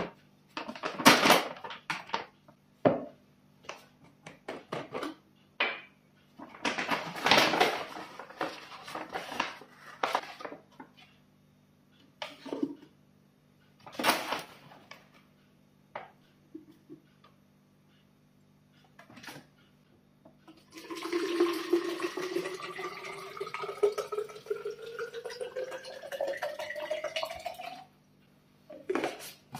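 Rustling and knocks from handling a drink-mix pouch and bottle. Then, about two-thirds in, water is poured into a plastic sports bottle for about seven seconds, its pitch rising steadily as the bottle fills.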